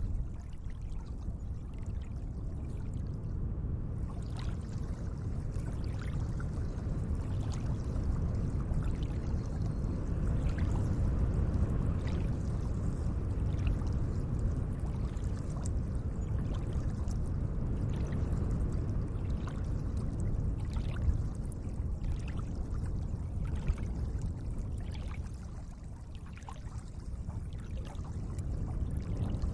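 Lake water lapping gently: a steady low wash with many small splashes and drips scattered through it.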